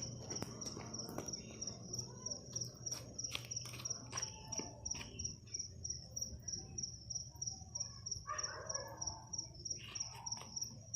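Cricket chirping steadily in a high, evenly pulsed trill, with scattered faint clicks and crackles.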